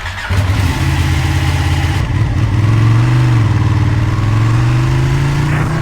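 Ducati 1299 Panigale's L-twin engine running while being ridden, its pitch shifting slightly up and down with the throttle and climbing slowly in the second half.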